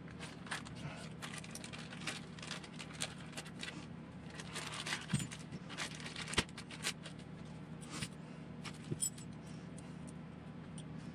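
A clear plastic kit-parts bag crinkling as it is emptied, with small black plastic parts and bagged hardware clattering and clicking as they are handled. The clicks and rustles come scattered throughout, the sharpest about six and a half seconds in, over a faint steady hum.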